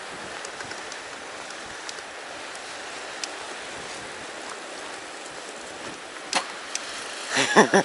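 Steady hiss of riding a fat bike over snow, with a few sharp clicks near the end.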